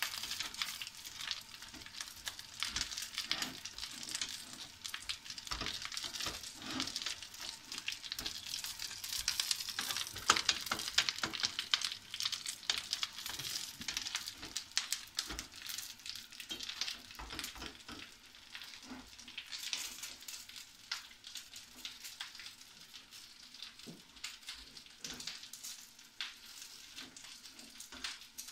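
Black kale (cavolo nero) sizzling in a frying pan, a steady crackle that is busiest around ten seconds in, while a spatula stirs a pot of soup alongside.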